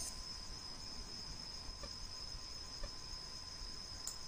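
Faint, steady high-pitched chirring of a cricket in the background, with a few soft clicks.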